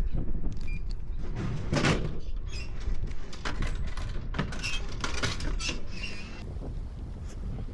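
Wind rumbling on the microphone with a string of short clicks, knocks and squeaks that thin out near the end.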